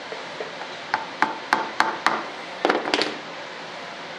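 Small hard parts being tapped and knocked on a workbench: five sharp taps about four a second, each with a short ringing tone, then a quick cluster of knocks.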